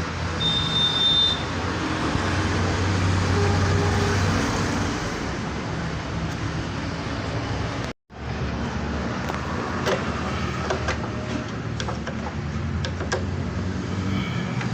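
Steady background rumble of road traffic with a low hum. After a brief cut near the middle, scattered light clicks and taps of metal parts being handled.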